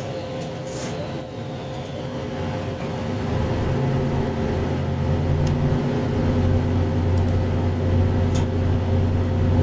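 Diesel engine of a 2700 series diesel multiple unit train running under power, a low steady drone that grows louder from about three seconds in.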